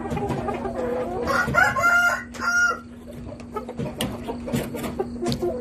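A rooster crows once: a call of about two and a half seconds that rises and then breaks into a few held notes. Light scattered clicks and knocks follow, over a faint steady hum.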